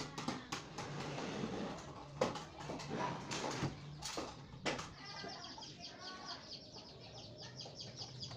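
A few sharp knocks and clatters, then from about five seconds in a fast, high-pitched chirping that repeats several times a second, over a steady low hum.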